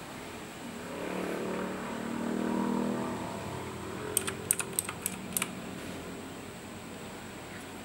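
Razer BlackWidow Chroma mechanical keyboard being typed on: a quick run of about eight sharp key clicks a bit over halfway through.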